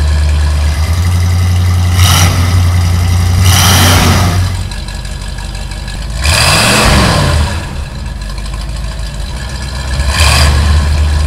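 Truck engine sound effect: a steady low rumble that revs up and back down about four times.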